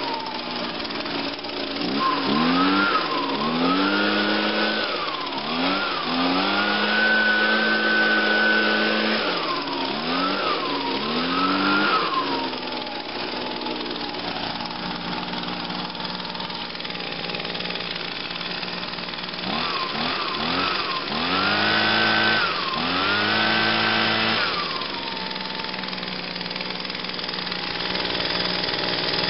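Echo PB-251 handheld two-stroke leaf blower running after a cold start. It is blipped up and down and held at high throttle for a few seconds, settles to idle, then is revved again a few times near the end before dropping back to idle.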